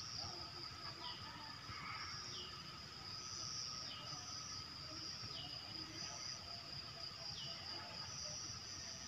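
Outdoor insect chorus: a steady high-pitched trill that runs on unbroken, with short falling chirps every second or two.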